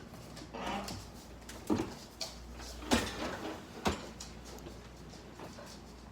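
Dishwasher being handled: a short sliding scrape, then three sharp knocks about a second apart, over a low steady hum.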